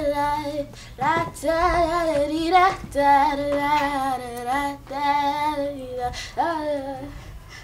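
A girl singing solo, holding long wavering notes in phrases with short breaths between them.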